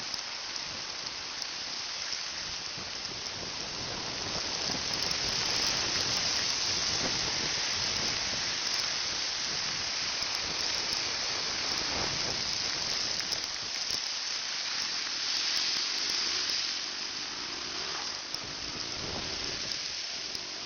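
Heavy rain hissing steadily, with water and wind rushing past as a motorcycle rides through the downpour; it grows somewhat louder a few seconds in.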